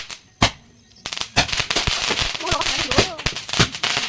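Firecrackers going off: one sharp bang about half a second in, then after a short lull a fast, dense run of cracks and pops.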